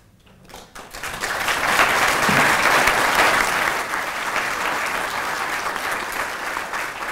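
Audience applauding, rising about a second in and slowly tapering off.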